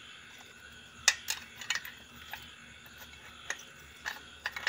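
Metal clicks and taps, about half a dozen scattered sharp ones, from a spark plug socket spanner being fitted over and turned on a chainsaw's spark plug to tighten it.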